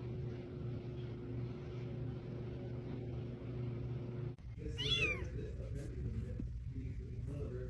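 A cat gives one short, high meow that falls in pitch, about five seconds in. Before it, a steady low hum runs until an abrupt break.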